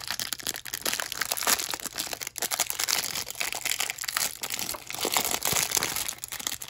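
Crinkling and crackling of a plastic trading-card pack wrapper being handled and torn open, a dense run of small crackles that stops near the end.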